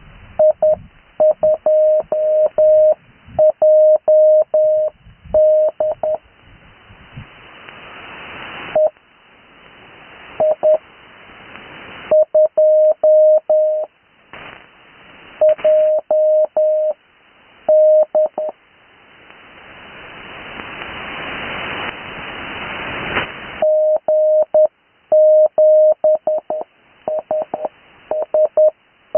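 Morse code (CW) sent on the 80-metre amateur band and heard through a radio receiver: a single steady tone keyed on and off in short and long marks, in groups with pauses between them. Band hiss fills the gaps and grows louder during the longer pauses.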